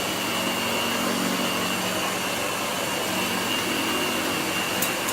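A c.1926 Hoover 700 upright vacuum cleaner running steadily with its beater bar, with a steady whine over the motor's rush of air, while it picks up shredded paper. A single brief click comes near the end.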